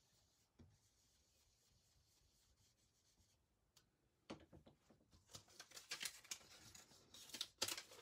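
A blending brush rubbing faintly on paper, then paper rustling and crackling as Post-it note masks and paper are lifted off the card front, starting with a sharp tap about four seconds in and growing busier toward the end.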